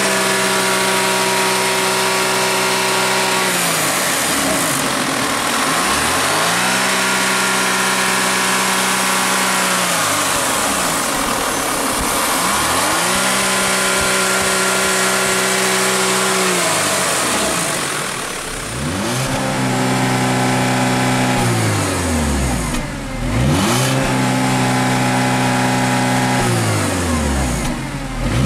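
Audi Q5's 2.0-litre turbocharged four-cylinder petrol engine (CDNC TFSI) revved up and held at high revs for about three seconds at a time, then dropping back to idle. This repeats five or six times, the last revs shorter and quicker.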